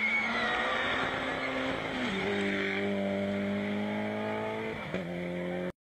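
Turbocharged Toyota Celica GT4 rally car on a gravel stage: a noisy pass at speed, then the engine holds a steady high note as the car pulls away down the track. The sound cuts out abruptly for a moment near the end.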